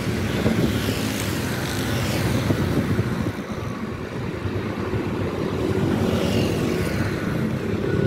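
Motor vehicle engines running steadily in a dense wash of noise, the level easing a little midway and building again near the end.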